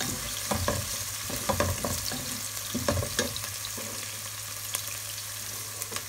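Chopped onion sizzling in hot ghee in a pot, stirred with a wooden spatula that scrapes and knocks against the pan about six times in the first three seconds or so, then the steady sizzle with fewer strokes. The onion is being fried toward golden.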